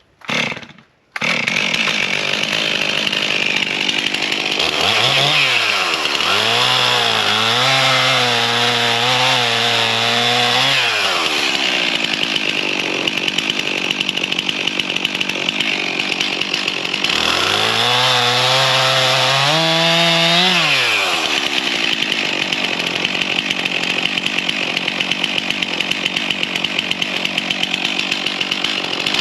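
Stihl chainsaw at full throttle, cutting into a downed ash log. Its engine note drops and wavers twice, for several seconds each time, as the chain bites into the wood, and rises back to high revs in between.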